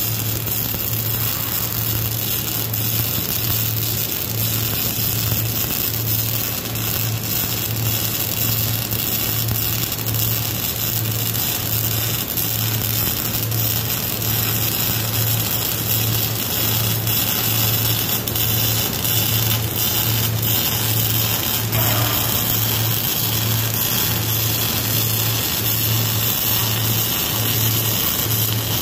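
Wire-feed (MIG) welding arc running continuously: a steady crackling hiss with a low hum that swells and dips in an even rhythm.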